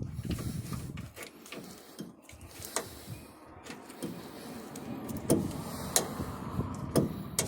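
A hand tool working a truck's rear shock absorber at its mount: metal rubbing and scraping, with several sharp metallic clicks in the second half.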